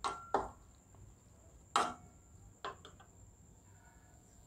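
Steel slotted spoon knocking and scraping against a nonstick frying pan while onions are stirred in oil: a few short sharp knocks, the loudest a little under two seconds in.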